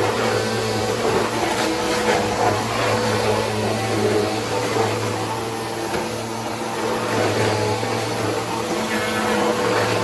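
Corded vacuum cleaner running steadily while pushed over a hard floor: a constant motor hum with rushing air.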